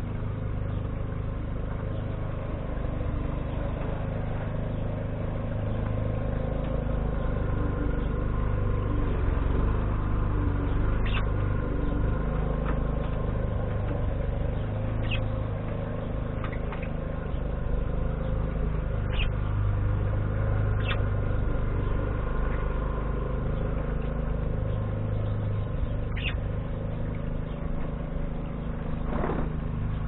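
A steady low rumble, with short, high single chirps from budgerigars a handful of times.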